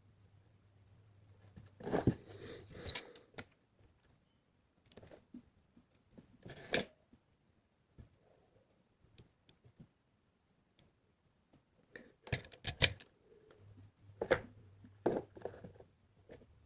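Scattered clicks, scrapes and rustles of small electronic parts and wires being handled by hand during assembly, coming in short clusters with a quiet stretch in the middle. A faint low hum sits underneath at the start and again near the end.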